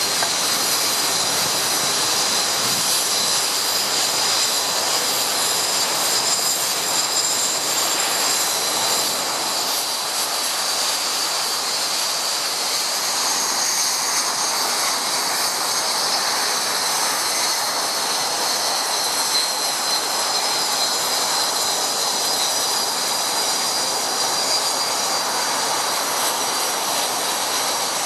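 BAE Hawk T1 jet trainers taxiing at low power: the Adour turbofans' steady high whine over a rushing hiss. The whine's pitch shifts a little about halfway through.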